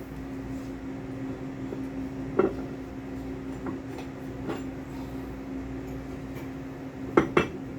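Steady machinery hum, with a few light clicks and knocks as twistlock parts are handled and fitted back together; the two loudest knocks come near the end.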